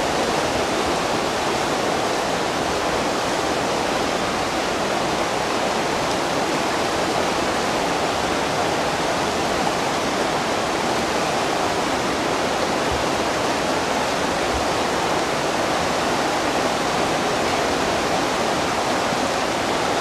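River water rushing steadily over a shallow gravel riffle, a constant even wash.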